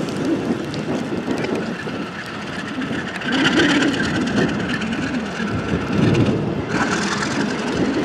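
Alco RS11 diesel locomotive's V12 engine running while it stands coupled to a string of tank cars, a steady rough running sound that grows somewhat stronger about three seconds in.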